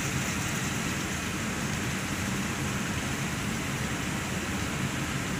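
Chicken frying in a large aluminium pot: a steady sizzle.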